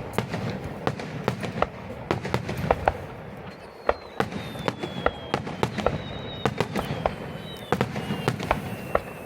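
Aerial fireworks bursting in rapid succession: a dense run of sharp bangs and crackles, with thin whistles gliding slowly down in pitch through the second half.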